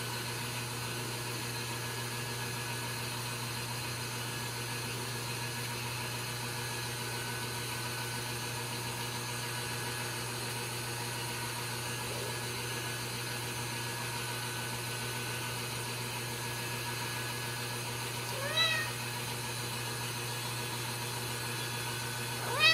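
Ragdoll kitten meowing briefly twice near the end, short high calls that rise and fall in pitch, over a steady low hum.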